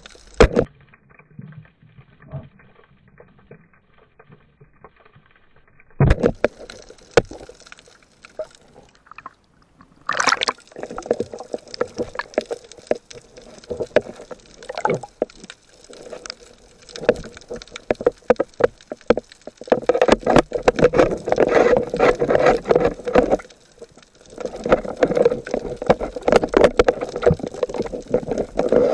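Water sloshing and splashing close by in irregular bursts, muffled for the first few seconds and heaviest in the second half.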